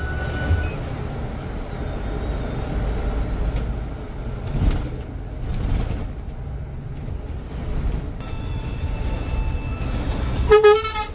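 Heavy road vehicle running with a steady low rumble, and a short, loud vehicle horn blast near the end.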